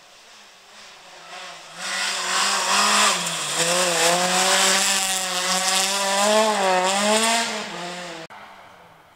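Citroën C2 rally car at speed on a gravel stage. The engine rises in loudness as the car arrives, its pitch sweeping up and down with throttle and gear changes, over a hiss of tyres and gravel. The sound cuts off suddenly near the end.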